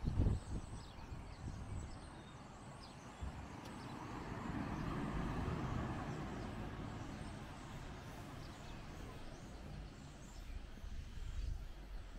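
A vehicle passes on the street, its noise swelling about four seconds in and fading away by about eight seconds. Wind buffets the microphone with low rumbles, loudest at the start.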